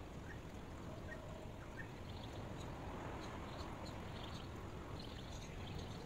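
Steady low rumbling background noise, with faint short high chirps scattered through it.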